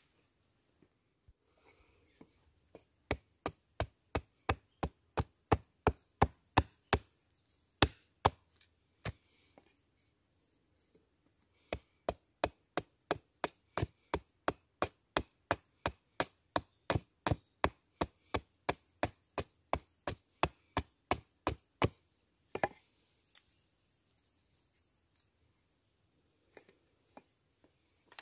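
Quick chopping blows of a blade into wood, about three a second, in two long runs with a pause of a couple of seconds between them, then a few scattered knocks near the end.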